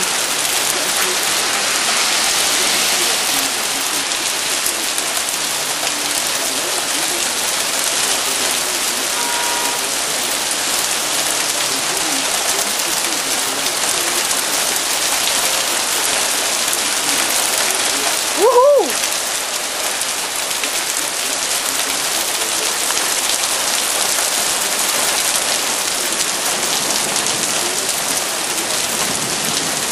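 Heavy rain mixed with hail pelting pavement: a steady, dense hiss. About two-thirds of the way through, a person gives one short exclamation.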